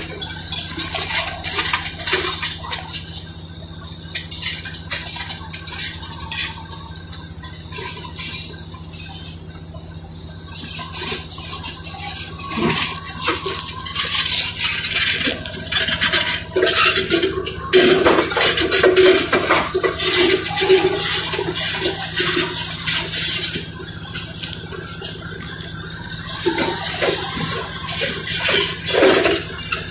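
Large Caterpillar crawler bulldozer at work: steel track links clank and broken concrete cracks and scrapes under the tracks, over the steady low hum of its diesel engine. The clatter is sparse at first and gets much busier from about the middle on.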